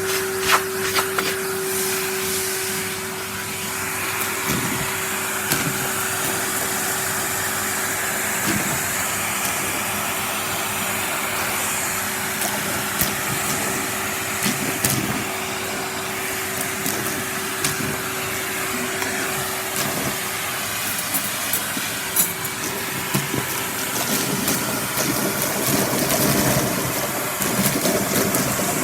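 Henry canister vacuum cleaner running steadily, with sharp clicks and rattles of crushed hazelnut shells being sucked up the hose. The steady hum in it drops away about two-thirds of the way through.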